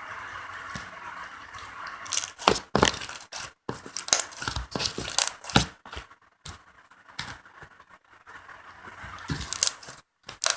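Close-up handling noise: a steady hiss, then from about two seconds in a run of sharp, irregular crackling and tearing sounds, like material being crinkled or pulled apart.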